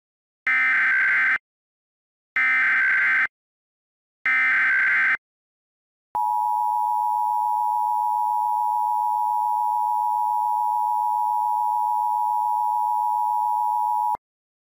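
Emergency Alert System broadcast header: three short bursts of SAME digital data tones, about two seconds apart, then the two-tone EAS attention signal held steady for about eight seconds before cutting off suddenly.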